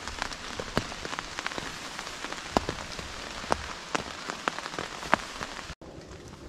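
Hard rain falling on the flysheet of an OEX Rakoon II tent, heard from inside: a steady hiss dotted with many sharp individual drop hits. The sound cuts out for an instant near the end, then the rain goes on a little softer.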